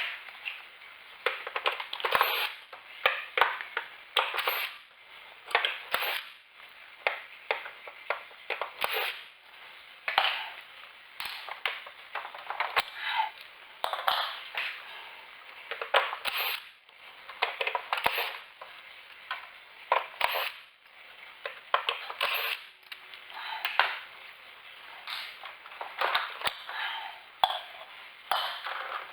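Irregular handling noise from parts being worked on: a run of short crackling, scraping and clattering bursts with occasional sharp clicks, about one to three a second.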